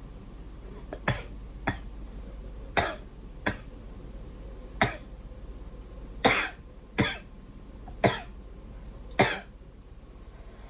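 A girl coughing: about nine separate single coughs, spaced roughly a second apart, over a steady low hum.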